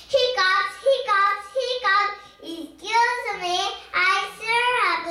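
A young girl's voice singing an English children's chant in a regular sing-song rhythm, short syllables with some held notes.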